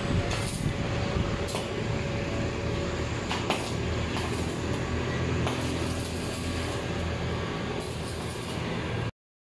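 Stick (arc) welding on a roll-up shutter's steel frame: the electrode arc crackling and hissing steadily, with a few short sharper bursts about half a second and a second and a half in. The sound cuts off abruptly just before the end.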